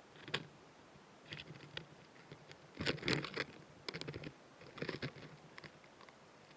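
Narrow-winged mantis chewing: irregular crisp crunching clicks, close-miked, coming in uneven clusters, the loudest about halfway through.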